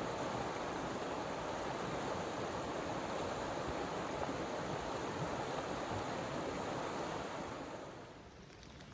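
Steady rushing outdoor ambience of wind and moving water, fading out near the end.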